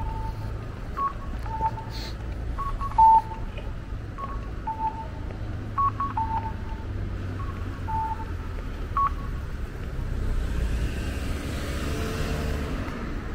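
Electronic signal beeps: short two-note tones, a higher note then a lower one, repeating every second or so over low street rumble, with a few sharp clicks. Near the end a rushing hiss swells up as something passes.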